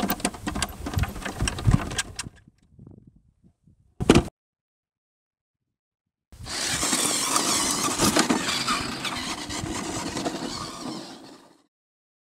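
Clicks and knocks as the plastic shell of a battery-powered remote-control camera buggy is closed up, a short loud burst about four seconds in, then the buggy's four-wheel drive running over dry dirt and grass in a steady rushing whir for about five seconds.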